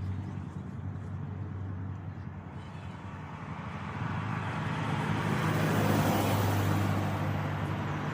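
A motorboat's engine drones steadily as the boat passes along the canal, its engine and water noise swelling to a peak about six seconds in before easing off.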